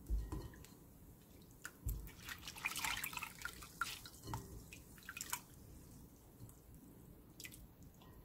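Water dripping and splashing back into a glass bowl as hands wring out soaked, rehydrated chili pepper leaves. Two soft thumps come at the start and about two seconds in, and a run of splashing falls between about two and five seconds.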